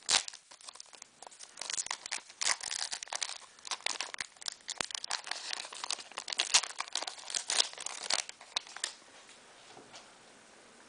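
Foil Pokémon booster pack wrapper crinkling and tearing as it is opened, a dense run of sharp crackles that dies away about eight and a half seconds in.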